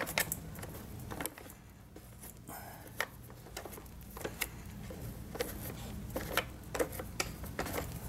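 Fingers picking tangled hair out of an ILIFE A4 robot vacuum's bristle roller brush: irregular small clicks and scratches on the plastic brush housing, over a faint steady low hum.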